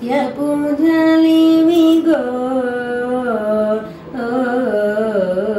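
A woman singing slowly and unaccompanied, holding long notes with a long steady note early on, then stepping down in pitch from note to note.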